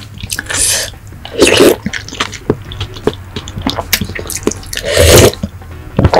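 Close-miked eating sounds: wet mouth smacks and chewing with small clicks, and three louder wet squelches about half a second, a second and a half, and five seconds in.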